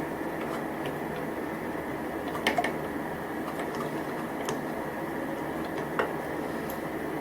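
A few light clicks and taps of small metal parts being handled as an embroidery machine's upper slider hook is worked into its bracket, the sharpest about two and a half seconds in and again near six seconds, over a steady hum.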